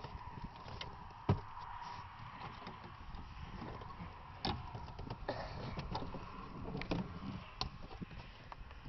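Light knocks and clicks of a wooden stick being handled against a golf cart's steering wheel and frame, the sharpest about a second in, over a faint low rumble.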